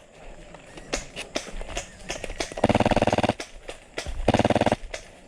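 Airsoft light machine gun (HPA-powered Stoner) firing two short full-auto bursts of rapid, even shots, about three seconds in and again a second and a half later, with scattered sharp clicks between.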